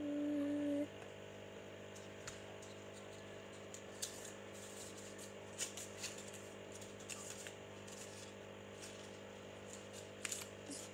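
Faint rustling and small clicks of paper pieces being handled and fitted onto fingertips, over a steady low hum. A short held hummed note at the very start.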